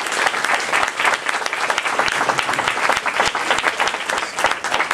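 An audience applauding, many hands clapping together steadily.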